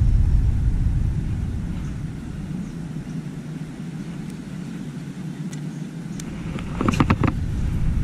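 Wind buffeting the microphone as a low rumble that eases off in the middle and picks up again. About seven seconds in, a quick run of sharp clicks as the baitcasting rod and reel are swung into a cast.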